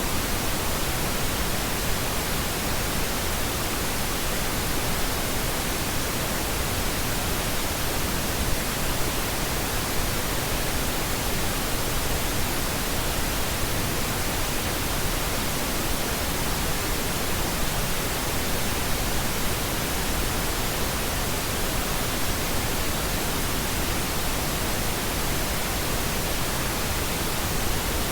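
Synthetic pink noise: a steady, even hiss across the whole range, with no change or break.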